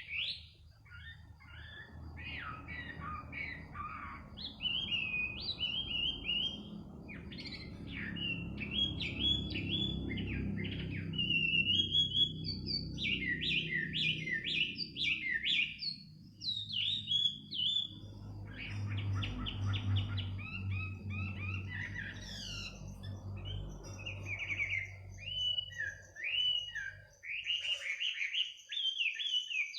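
Songbird singing a fast, varied run of chirps, trills and whistled glides. A low rumble runs underneath for most of it and fades out near the end.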